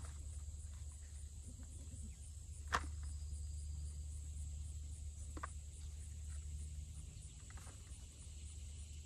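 Steady high-pitched insect chirping that pulses evenly, about three times a second, with a few short snaps and rustles of plant stems being pulled by hand; the sharpest snap comes nearly three seconds in.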